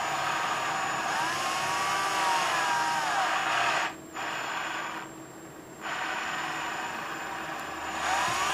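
Cordless drill with a quarter-inch bit running slowly through the plastic housing of a Canon 580EX flash. It runs in spurts: it stops briefly about four seconds in, runs quieter for a moment, pauses again, then picks up once more. The motor pitch rises and falls while it cuts.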